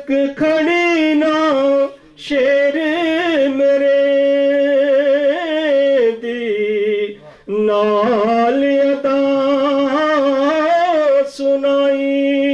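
A solo male voice singing Punjabi Sufi verse in long held notes with wavering ornaments, pausing for breath twice.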